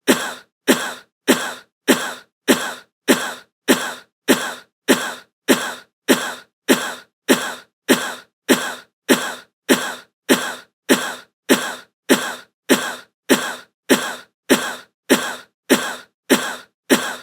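A looped stock sound effect: one short burst that starts sharply and fades within a fraction of a second, repeated at an even pace of a little under two a second, with silence between.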